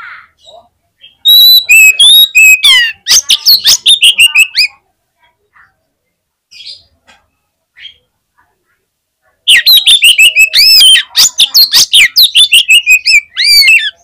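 Oriental magpie-robin (kacer) singing a fighter's challenge song in two loud bursts of rapid whistles and harsh clicking notes, the first about a second in and the second about halfway through, with a pause between.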